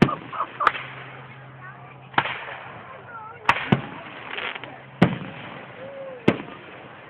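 Fireworks going off: about seven sharp bangs, irregularly spaced a second or so apart, one of them a quick double.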